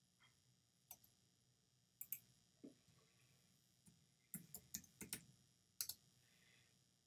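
Computer keyboard keystrokes: scattered single clicks, then a quick run of them about four to five seconds in.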